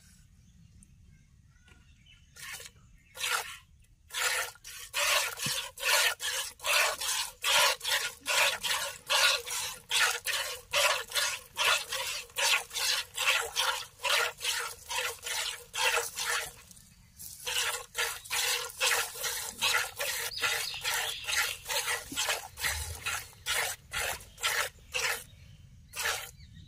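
Hand-milking a cow: jets of milk squirting from the teats into a plastic bucket in a steady rhythm of about two spurts a second. The spurts start a couple of seconds in and break off briefly about two-thirds of the way through.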